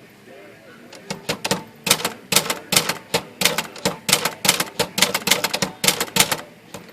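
Erika manual typewriter being typed on: a quick run of type bars striking the platen, about five keystrokes a second, starting about a second in and stopping near the end. It is a test typing to check the uppercase and lowercase alignment after a shift motion adjustment.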